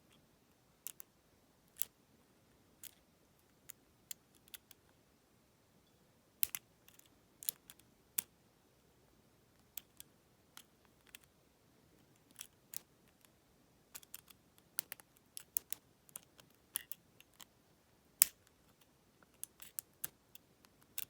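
Lock pick working the pins inside a Federal PL90PE 38 mm lockout padlock: small, sharp metallic clicks at irregular intervals, more frequent in the second half, as the pins are lifted and set under tension.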